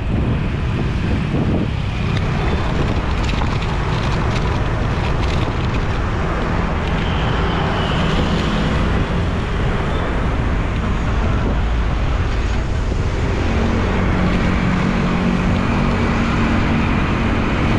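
Road traffic running past, with wind buffeting the microphone throughout. In the last few seconds a vehicle's engine hum comes up.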